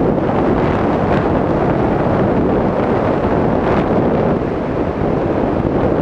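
Loud, steady wind noise from airflow buffeting an action camera's microphone on a pole mount, in flight under a tandem paraglider.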